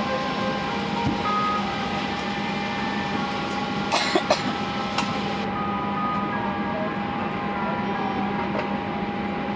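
Steady machinery hum with a constant whine running through it, and a few sharp knocks about four seconds in.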